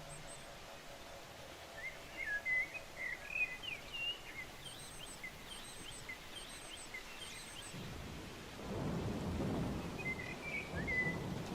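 Small birds chirping in quick, varied calls, with a few very high thin notes among them. About two-thirds of the way in, a low rumbling noise sets in and grows louder, drowning much of the birdsong.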